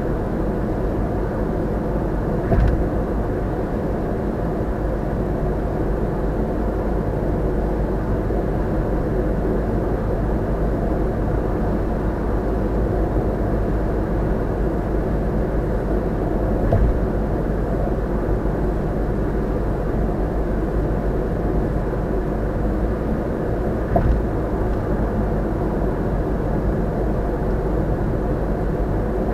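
Steady road and tyre noise heard inside a car's cabin cruising at constant expressway speed, with three brief thumps: one a few seconds in, one around halfway, and one later on.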